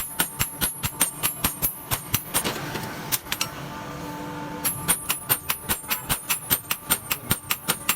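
Hammer blows on hot iron over an anvil while forging a tree-cutting blade: rapid ringing metal strikes, about four or five a second. They stop for about two seconds in the middle, then start again.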